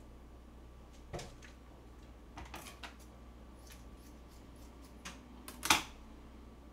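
Plastic meal-kit sauce sachets being handled: a few short crinkles and clicks, the loudest about three-quarters of the way through.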